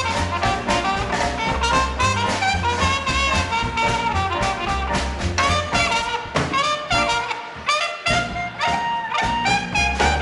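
Small swing jazz band playing live: trumpet and saxophone lines over bass, piano and drums in a steady swing rhythm. About seven seconds in, the bass drops out for a moment before the full band comes back in.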